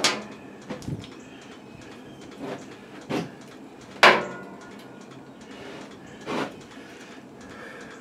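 Irregular knocks and clunks of tools and metal parts being handled while working on an old tiller, about half a dozen in all, the loudest about four seconds in.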